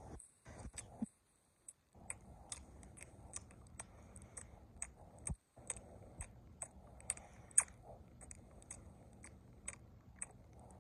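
Quiet, irregular crisp clicks close to the microphone, about three a second, over a faint low rumble, typical of ASMR trigger sounds.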